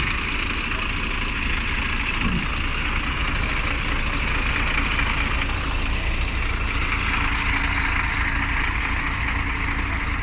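Heavy vehicle's engine idling steadily, a low rumble under a constant hiss.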